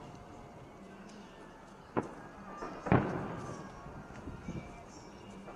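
Fireworks bursting at a distance: two booms about a second apart, the second the loudest with a long echoing rumble, then a few small pops near the end.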